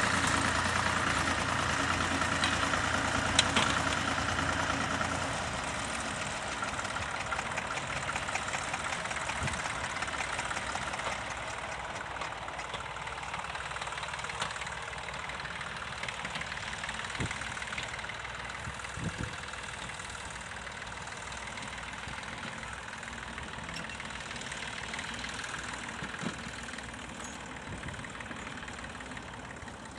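Vintage tractor engine running steadily, loud for the first five seconds or so, then fainter for the rest, with a few short knocks later on.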